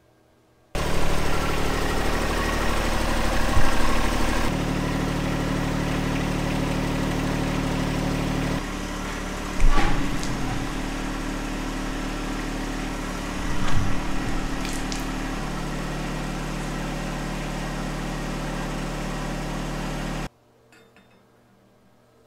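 Electric motor of a hydraulic pump unit running steadily under load as the lift frame is raised. It starts and stops abruptly, its tone steps a few times, and a few clunks sound along the way, the loudest about ten seconds in.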